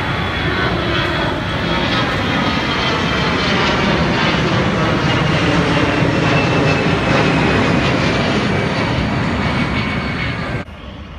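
Loud engine noise of an Airbus A320-family twin-jet airliner passing low overhead, with a faint whine that slowly falls in pitch as it goes by. The sound cuts off suddenly near the end.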